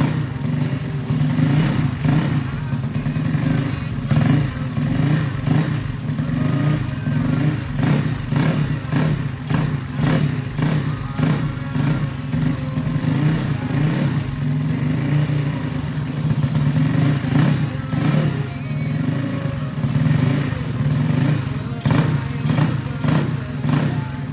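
Yamaha Mio scooter's single-cylinder four-stroke engine running at a fairly steady speed, with frequent irregular clatter and knocks over the engine note.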